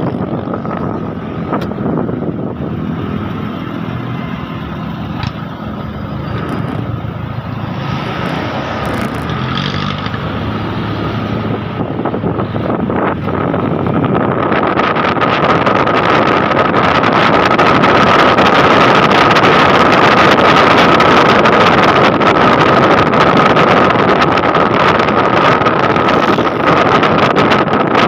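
Motorcycle riding along a road: a steady engine drone with a high whine over it, and wind rushing on the microphone. It grows louder and hissier about halfway through.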